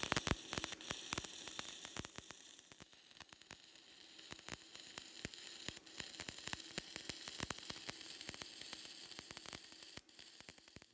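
Stick welding arc crackling and sizzling as a general-purpose electrode burns, with dense irregular pops over a steady hiss. It is louder for the first couple of seconds, then softer, and breaks off about ten seconds in.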